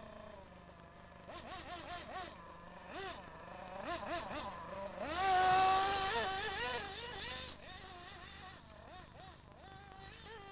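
Graupner Impuls 3000 1/8-scale off-road buggy's small OS Max glow (nitro) engine revving up and down as the buggy is driven. It is loudest from about five seconds in, when it comes close, with a rising pitch.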